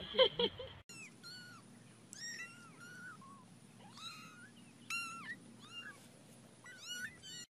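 A litter of young kittens mewing over and over in thin, rising-and-falling calls, several voices overlapping. A short, louder sound cuts off within the first second.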